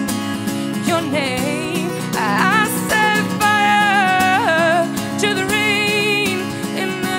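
A female singer's voice with acoustic guitar accompaniment, performed live: long, gliding sung lines with vibrato over the guitar's steady chords.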